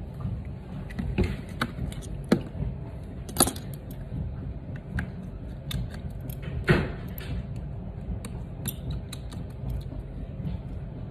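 Scattered light clicks and taps of an opened iPhone 7 and small tools being handled on a workbench, with three sharper knocks, over a steady low hum.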